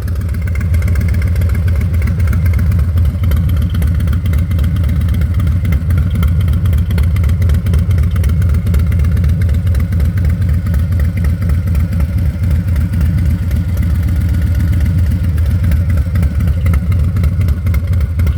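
2025 Harley-Davidson Low Rider ST's Milwaukee-Eight 117 V-twin running steadily at idle through a TBR 2-into-1 aftermarket exhaust, with a deep, choppy idle.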